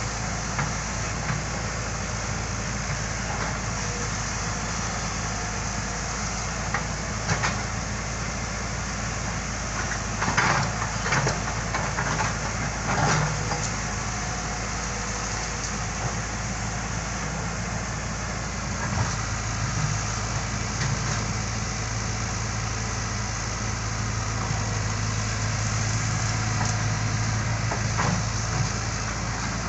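Excavator's diesel engine running steadily, with a few sharp knocks about ten to thirteen seconds in; the engine note grows stronger from about nineteen seconds.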